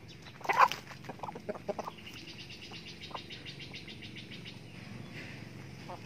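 Backyard chickens clucking as they feed, with one louder squawk about half a second in and a string of short clucks after it.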